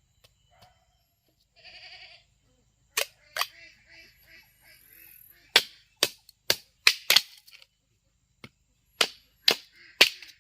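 A series of about ten sharp knocks, irregularly spaced, starting about three seconds in, like blows struck during hand work. A short rasping sound comes just before them.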